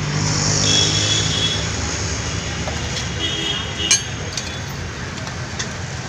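Busy street ambience of traffic noise with indistinct voices, broken by a few sharp clinks, the loudest about four seconds in.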